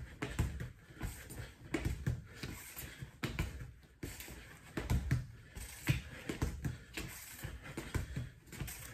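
Quick soft taps of a soccer ball pushed back and forth between the feet, mixed with shoes shuffling and scuffing on a concrete floor, several touches a second in an uneven rhythm.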